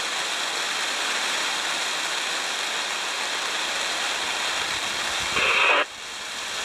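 Steady hiss of rain and wind. About five and a half seconds in, a short burst of two-way radio static cuts in loudly and breaks off.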